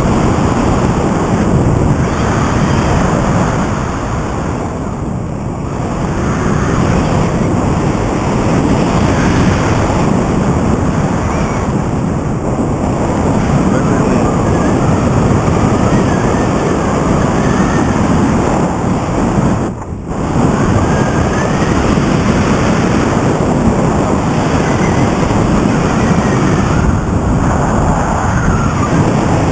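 Loud, steady wind noise buffeting the microphone in flight under a paramotor wing, dipping briefly about two-thirds of the way through.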